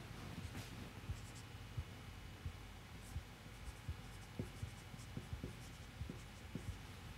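Marker writing on a whiteboard: faint, irregular taps and squeaks of the felt tip against the board.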